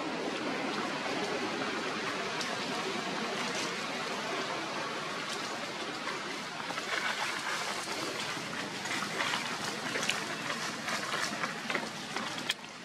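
Steady outdoor rushing background noise, with dry leaves crackling and rustling as long-tailed macaques move over the leaf litter, in short bursts from about six seconds in.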